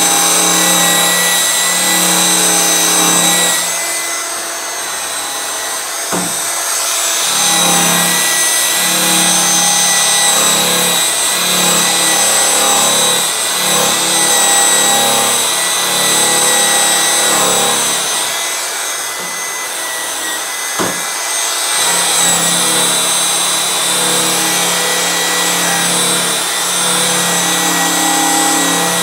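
Variable-speed electric polisher running at about 2200 rpm with a white flannel buffing wheel and blue finishing compound on aluminum, the finishing pass of a polish: a steady motor whine that dips in level twice, with a couple of sharp ticks.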